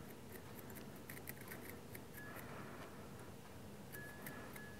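Felt-tip marker being drawn on a steel M5 tap held in the fingers: faint small clicks and scratches, with a thin high squeak briefly about two seconds in and again near the end.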